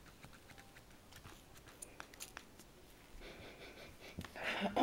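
Faint clicks of fingers handling a small unscrewed perfume atomizer, then a soft breathy hiss from sniffing at the scent over the last second and a half.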